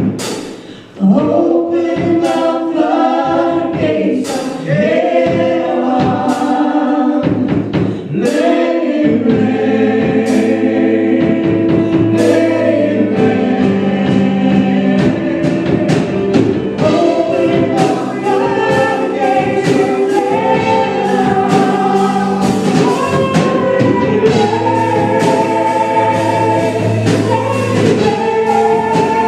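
Gospel praise team singing in harmony with band accompaniment and a steady drum beat. The sound dips briefly about a second in, then carries on.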